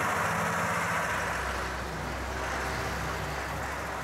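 Old cargo truck's engine running steadily while under way, heard from inside the cab: a low drone that firms up about a second in, with a haze of road noise over it.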